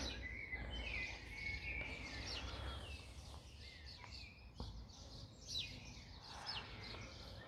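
Small songbirds chirping and warbling in short repeated phrases, over a low rumble that is stronger in the first half.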